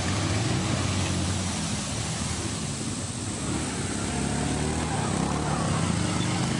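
ATV engine running at low revs as the quad approaches, a steady low drone that wavers slightly in pitch.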